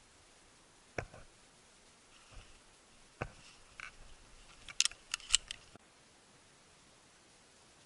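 Handling noise: a few scattered knocks, then a quick run of sharp mechanical clicks about five seconds in.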